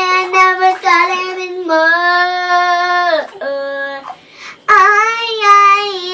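A young girl singing unaccompanied in long held notes; about three seconds in her voice slides steeply down, and after a short break she holds another long note.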